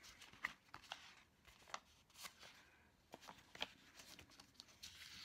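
Faint handling of paper sticker sheets on a desk: several soft, irregular clicks and taps, with a brief rustle near the end.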